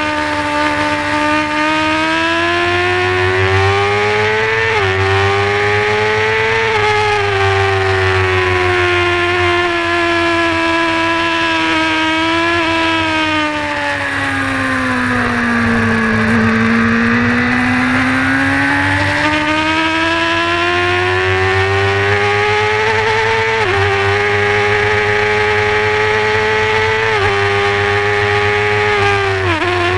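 Honda supersport race bike's engine at high revs, heard from on board over wind rush. Its pitch climbs over the first few seconds, sinks to its lowest about halfway through, then climbs again in several small steps as the gears change.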